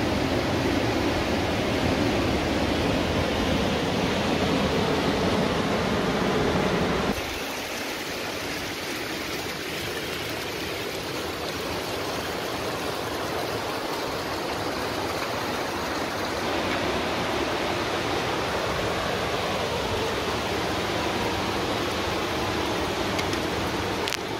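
Steady rush of water from the stream and falls in a rocky mountain gorge. About seven seconds in it drops suddenly to a quieter, thinner hiss of water.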